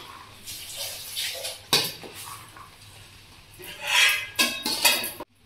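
Metal spoon scraping and clinking against a large metal bowl while mixing raw drumstick leaves with black-eyed peas and chilli powder, in irregular strokes: a sharp knock a little under two seconds in and a longer scrape about four seconds in.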